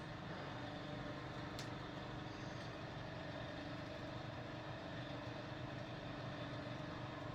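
Ceiling fan motor running on high with a steady low hum; a bad capacitor keeps it from running well at that speed. A faint click about a second and a half in.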